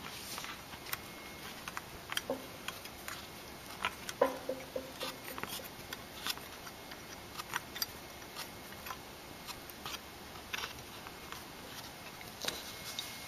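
Irregular small clicks and taps as a neon sign's black cable and plastic standoffs are handled and pressed into place, including scissors worked at the cable.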